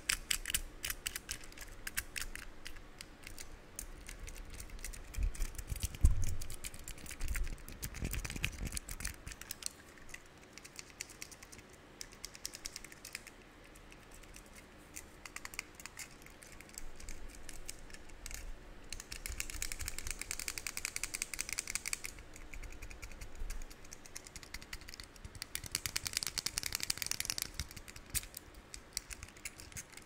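Pink plastic fidget cube worked close to a microphone: a dense run of quick small clicks and rattles from its joystick and buttons, with a louder knock about six seconds in. Later come two stretches of scratchy rubbing on the cube.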